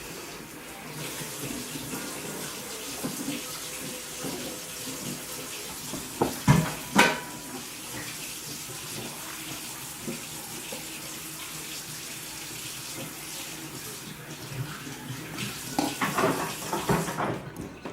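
Water running steadily, as from a tap. Two sharp knocks come about six and a half and seven seconds in, and a run of clattering knocks comes near the end.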